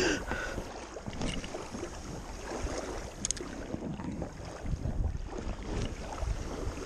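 Wind buffeting the microphone in uneven gusts, with lake water lapping faintly underneath.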